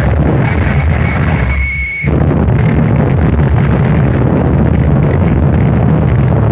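Harsh noise music: a loud, dense wall of distorted noise. About a second and a half in it thins for a moment under a high whistling tone, then the full noise slams back in.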